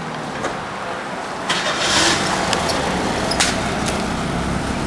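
Car engine running as a sedan drives slowly past, with a short noisy rush about two seconds in and a sharp click a little later.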